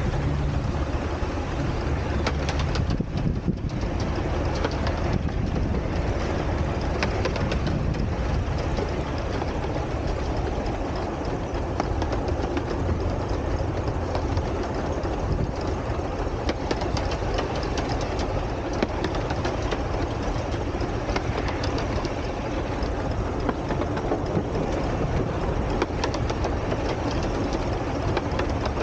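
Two 12¼ inch gauge miniature steam locomotives hauling a passenger train: a steady running rumble with a dense patter of clicks and clatter from wheels and rails.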